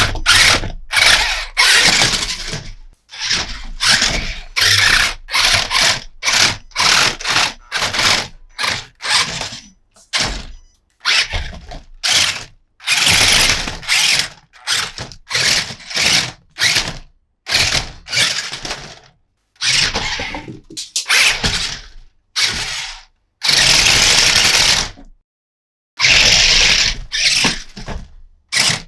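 Hard plastic toy parts rattling and clicking in many short, separate bursts, like a plastic playset mechanism or toy trucks being worked, with dead-silent gaps between some bursts.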